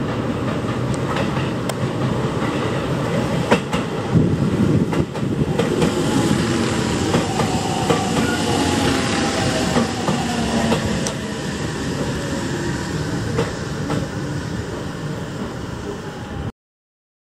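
Aonami Line 1000 series electric train running into the platform, its wheels clacking over the rail joints with a falling whine as it slows. The sound cuts off suddenly near the end.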